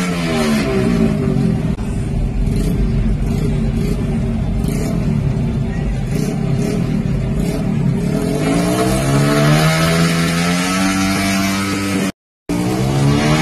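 A motor vehicle engine revving, its pitch falling about a second in and climbing again about eight seconds in, over a steady low rumble. The sound drops out for a moment near the end.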